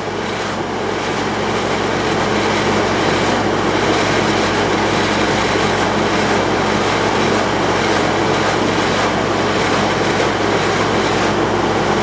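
Haier ESAQ406T window air conditioner running with its indoor fan on high and the compressor on: a steady rush of air over a low hum. The high fan speed is melting the frost off an evaporator coil that iced up on low speed for lack of airflow.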